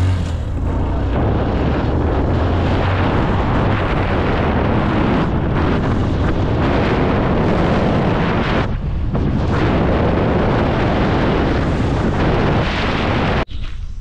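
Heavy wind buffeting the microphone on a moving motorcycle, with the bike's engine and tyres on the dirt road under it; it drops briefly about nine seconds in and cuts off abruptly near the end.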